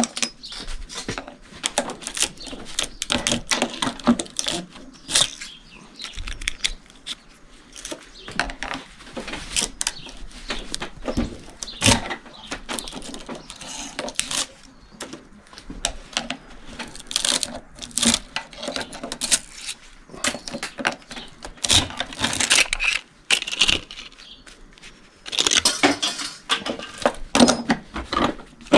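Copper windings being pulled and pried out of an electric motor stator held in a vise: irregular metallic clinks, clatters and scraping of wire and tools, with a denser stretch of scraping near the end.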